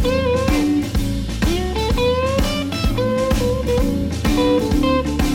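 Blues song playing as background music. This is an instrumental break with an electric guitar playing bent notes over a steady beat.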